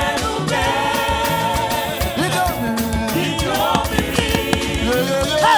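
Live gospel praise music: a singing voice or group of voices over a band with a steady dance beat.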